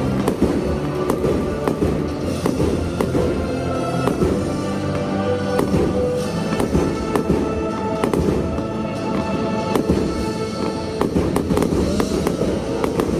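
Aerial fireworks going off in rapid, repeated bangs and crackles, with music playing alongside.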